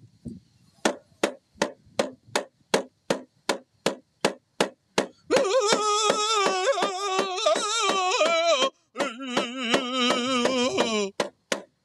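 Rawhide hand drum beaten steadily, about three strokes a second. About five seconds in, loud powwow-style singing with a wavering pitch comes in over the drum, breaks briefly, and carries on in a second phrase before the drum alone plays out the last few beats.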